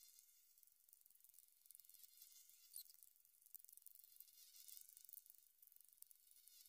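Near silence with a faint, steady, high-pitched buzzing of insects.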